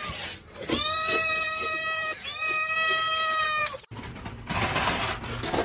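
A cat yowling: two long, drawn-out meows of about a second and a half each, held at a steady pitch. About four seconds in the sound cuts off sharply and gives way to noise with scattered clicks.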